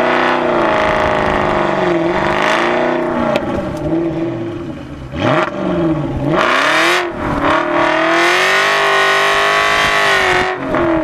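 Aston Martin V8 Vantage Roadster's V8 engine through a Larini sports exhaust, revving up and down as the car is driven. The engine note falls and climbs several times, with quick drops and rises about five and seven seconds in, then holds high from about eight seconds before a brief dip near the end.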